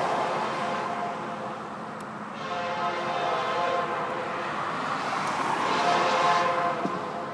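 Locomotive air horn, a multi-chime Nathan K5LA, sounding a chord from the approaching coal train's lead unit far down the track. One blast fades out in the first second, then a long blast starts about two and a half seconds in and swells toward the end.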